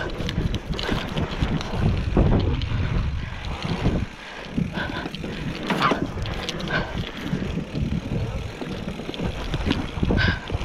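Mountain bike riding fast down a dirt singletrack: a steady rumble of tyres on dirt and wind on the microphone, with frequent clicks and knocks as the bike rattles over bumps.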